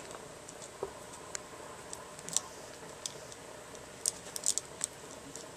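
Light, scattered clicks and taps of a small clear plastic tape-light connector being handled and turned in the fingers, with a few clicks close together about four seconds in.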